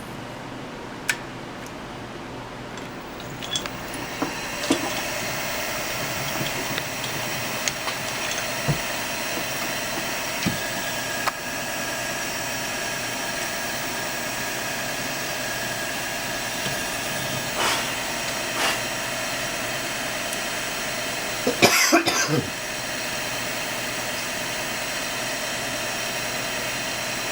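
A benchtop milling machine's spindle starts about four seconds in and runs steadily with a hum, drilling pin holes through a knife handle's liner. Light clicks of the tooling are heard, and a short louder noisy burst about three-quarters through.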